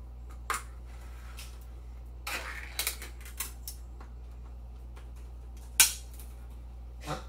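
Small metal can of tomato sauce being opened by hand: scattered light metallic clicks and a short scrape, then one loud sharp snap about six seconds in.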